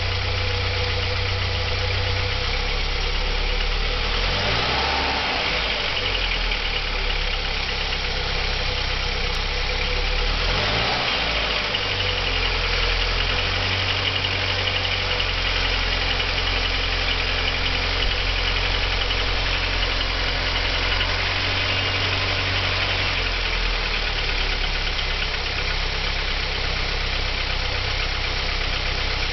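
The 1.8-litre JN inline-four of a 1987 Audi 80 B3 idling with a knock whose cause is unknown. The engine speed rises and falls twice, about four and ten seconds in.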